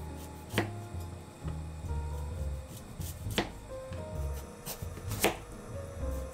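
A kitchen knife cutting through a firm root vegetable on a cutting board: a few separate sharp knocks spaced irregularly, the loudest a little after the start and about five seconds in, over background music.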